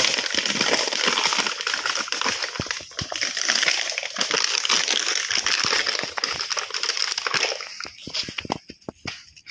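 Stiff plastic jar crinkling and scraping as it is twisted and pulled off a struggling dog's head, mixed with the dog scuffling in dry leaves and dirt. The dense crackling dies away about seven and a half seconds in.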